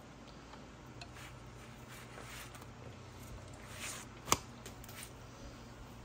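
Flour tortilla flipped in a dry nonstick frying pan: quiet rustling about four seconds in, followed by a single sharp tap, over a faint steady hum.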